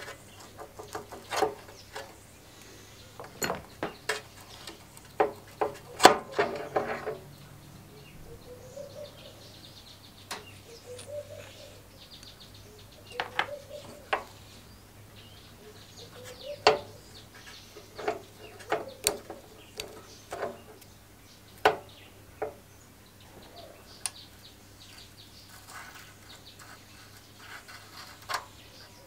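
Metal parts clicking and knocking as a rusty sprocket and a spacer sleeve are worked off a lawnmower shaft by hand, in irregular bursts with the loudest cluster about six seconds in. Birds call faintly behind.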